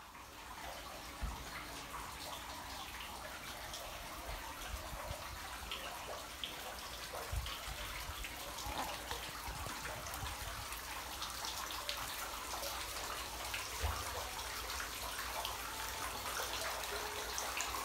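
Tiered stone fountain running, water splashing and trickling steadily from its bowls into the basin, with fine drips. A few low bumps come through, the sharpest about a second in and near the fourteen-second mark.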